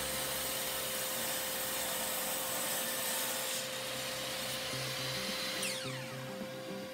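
Compound mitre saw running and cutting through a wooden board. About five and a half seconds in the trigger is released and the motor winds down in a falling whine.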